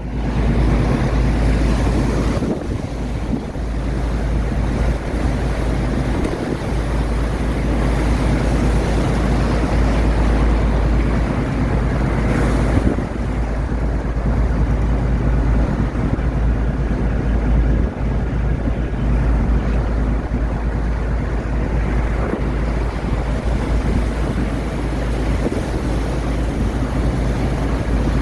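Boat engine running steadily under way, a constant low hum, with water rushing past and wind buffeting the microphone.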